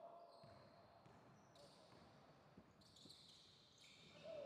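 Faint sounds of a basketball game on a hardwood gym court: a basketball bouncing and players moving around, heard as scattered soft thumps with brief high-pitched sounds.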